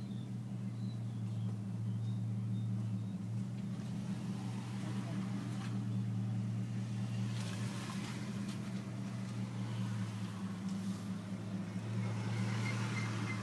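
Car engine running with a steady low hum while driving slowly, with some road and tyre noise swelling at times.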